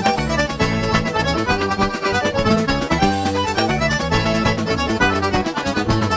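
Accordion-led music with a steady beat, cutting off suddenly at the very end.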